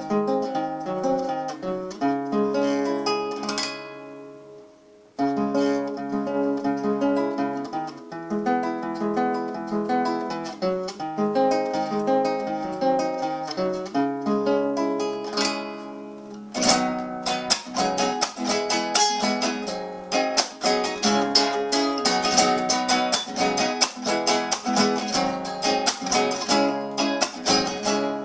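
Acoustic guitar playing an improvised carnavalito: picked melody notes with a short break a few seconds in, then fast, rhythmic strumming from about two-thirds of the way through.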